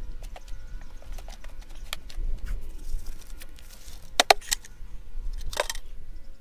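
Hands rustling and picking through loose potting soil, with small clicks and scratches. About four seconds in, a black plastic five-gallon bucket is tipped over the wheelbarrow and its soil dumped out, giving two louder clunks, the second with a short rush of falling soil.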